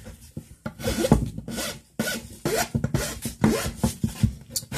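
Hand file rasping across the end of a birch walking stick in repeated strokes, rounding off the top.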